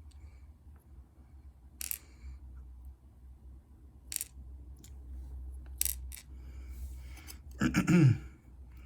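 Lock key pins being tipped out of a dimple cylinder's plug, clicking sharply onto a hard surface three times about two seconds apart. A short murmur of voice near the end is the loudest sound.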